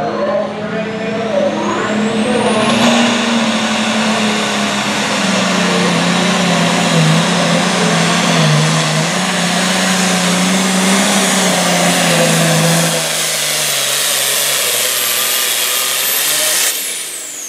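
Hot farm class International tractor's turbocharged diesel pulling a sled at full throttle. The turbo whistle climbs over the first few seconds and the engine note sags as it loads down. Near the end the turbo whistle falls away and the engine drops off as the throttle is cut.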